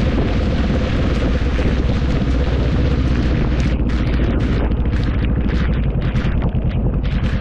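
Wind rumbling heavily on the microphone during a ride in the rain, over a steady hiss of rain and traffic noise that thins out about halfway through.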